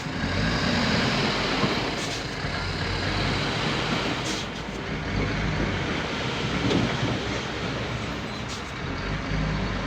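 Heavy diesel earthmoving machinery running steadily: a low engine drone under a broad, even rumble, with a few brief clicks.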